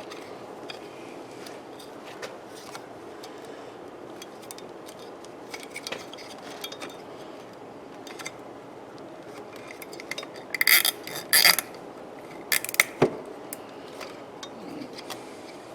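A plastic zip tie being threaded and pulled tight around a wiring plug, with scattered clicks of handled plastic parts and a burst of ratcheting clicks about two-thirds of the way through, over a steady low hum.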